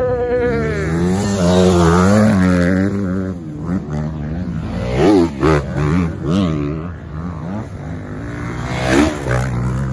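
Dirt bike engine revving, its pitch rising and falling in repeated sweeps, with two sharp revs about five and nine seconds in, over the steadier running of ATV engines.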